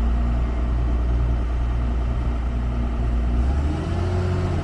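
Heavy vehicle engine running steadily with a low rumble, its pitch rising slightly near the end.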